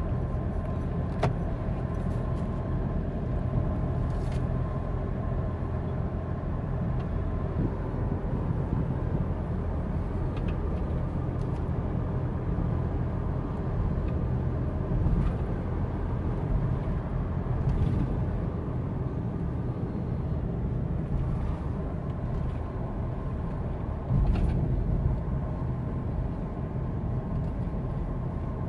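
Steady low rumble inside the cabin of a Mitsubishi Pajero Sport Dakar cruising at about 80 km/h: tyre and road noise with its diesel engine turning about 1,500 rpm in seventh gear. The rumble swells briefly about 24 seconds in.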